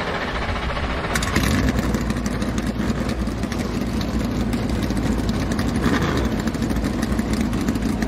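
NASCAR Cup Series stock cars' V8 engines running steadily at idle, just fired up on the command to start engines.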